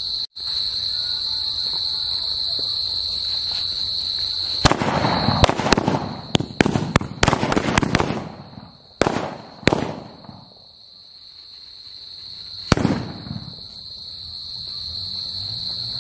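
A Standard Fireworks deluxe ladi (string of firecrackers) going off on the ground: a rapid, irregular run of sharp bangs starts about five seconds in and lasts about five seconds, then one last bang follows a few seconds later. Crickets trill steadily underneath.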